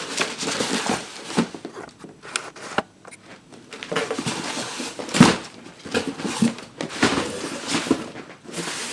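Cardboard shipping box and paper packing being handled and opened: irregular rustling and crinkling with scattered light knocks, and a louder thump about five seconds in.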